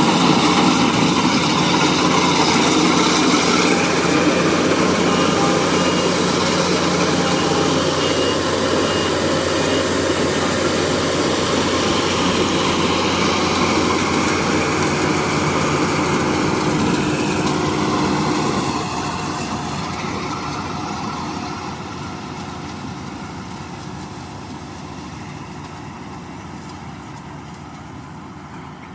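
Marksan MS-1200 combine harvester running steadily with a loud engine drone. About two-thirds of the way through it drops in level, then fades gradually.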